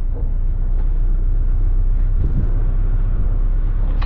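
A vehicle driving slowly off-road: a steady low rumble of engine and tyres, with a small knock about two seconds in.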